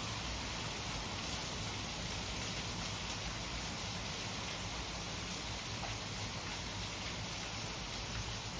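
Steady rainfall, an even hiss that holds at one level throughout.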